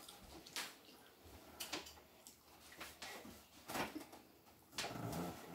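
A handful of light clicks and knocks, about six spread over a few seconds, with a short rustle near the end: small handling noises in a room.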